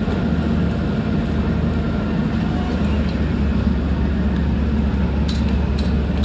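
JCB 3CX backhoe loader's diesel engine running steadily, with a couple of sharp clicks near the end.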